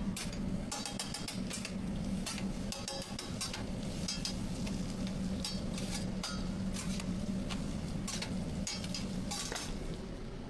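Metal cooking utensils striking cookware: irregular sharp ringing clinks, a few a second, over a steady low hum.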